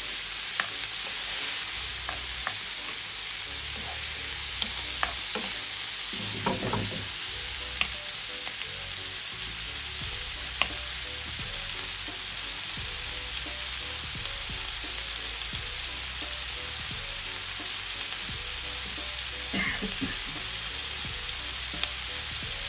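Chopped onions, bell peppers and cherry tomatoes sizzling steadily in a frying pan, with a wooden spoon stirring and knocking against the pan now and then, mostly in the first half.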